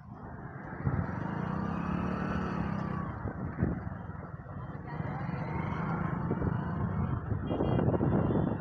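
Vehicle engine and road noise while riding along a busy road with traffic around. It gets louder about a second in, with a few short knocks along the way.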